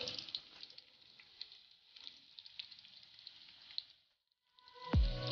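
Onions and tomatoes crackling and sizzling softly in hot oil. The sizzle cuts off about four seconds in, and music with a deep falling boom starts near the end.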